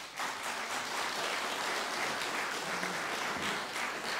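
A hall full of delegates applauding steadily, adopting a motion by acclamation.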